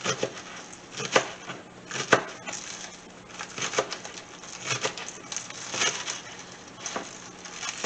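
Chef's knife chopping scallions on a cutting board: short, crisp knocks as the blade cuts through the stalks and meets the board, coming unevenly about one or two a second.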